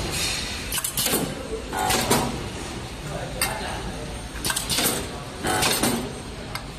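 Metal parts clinking and clattering as a pneumatic welding machine is loaded and cycled, with repeated short bursts of noise roughly every second over a steady factory background.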